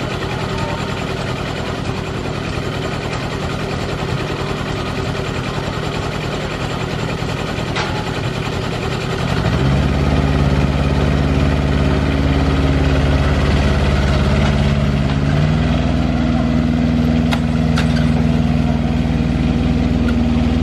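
The engine of a 7¼-inch gauge miniature Class 47 locomotive idling steadily, then revving up about halfway through as the loco pulls away, and rising again in pitch a few seconds later.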